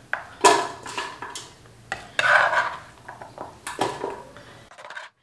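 A kitchen knife scraping chopped tomatoes and chillies off a cutting board into a steel pot, clinking against the pot several times. It cuts off suddenly near the end.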